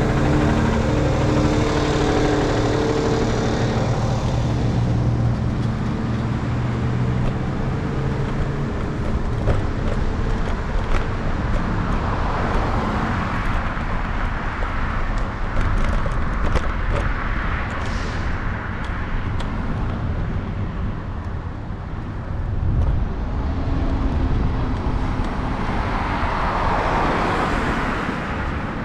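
City street traffic heard from a moving scooter. A motor vehicle's engine hums for the first few seconds, then passing cars come and go as swells of tyre and engine noise.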